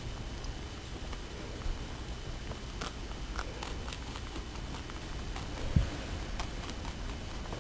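Angora rabbit chewing parsley, with irregular small crisp crunches as the stalks go into her mouth. A single low thump stands out a little before the end.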